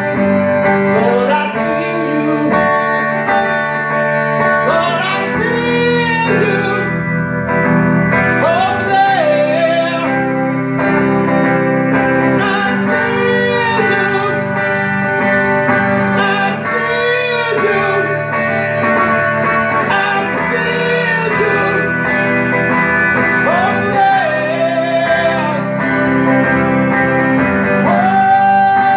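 Live music: two guitars playing while a man sings long, wavering phrases, going into a long held note near the end.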